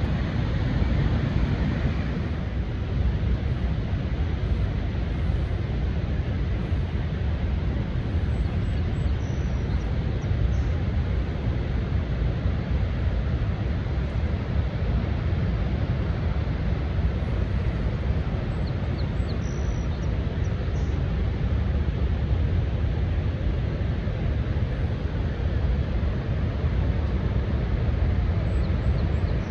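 Niagara Falls roaring: the steady, unbroken rush of the waterfall, heaviest in the low rumble.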